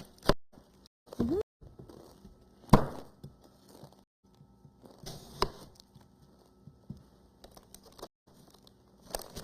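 Kitchen handling noises during cooking: a few sharp knocks, about three seconds, five and a half seconds and just after the end, with light clattering and rustling between. A brief vocal sound about a second in.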